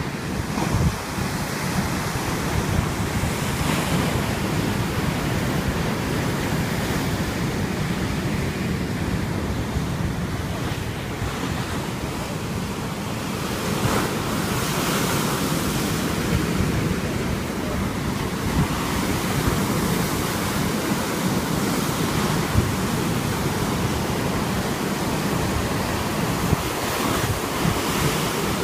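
Sea waves washing in and breaking on the shore, a continuous surging wash that swells several times, with wind buffeting the microphone.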